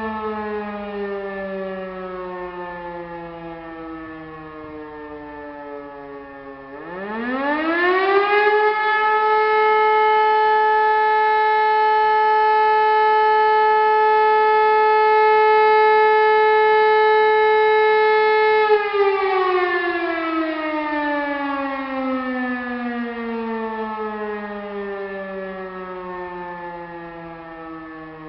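E57 motor siren sounding a test of the German fire alarm signal. It winds down with falling pitch, then about seven seconds in spins up quickly to a steady tone held for about ten seconds, and winds down again with falling pitch as the rotor coasts.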